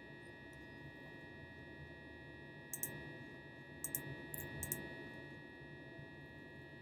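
Several soft clicks of a computer mouse, in small quick clusters about three seconds in and again around four to five seconds, over a faint steady electrical whine.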